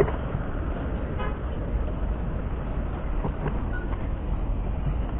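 Steady low rumble of a motor vehicle, with a sharp click right at the start and a brief faint toot about a second in.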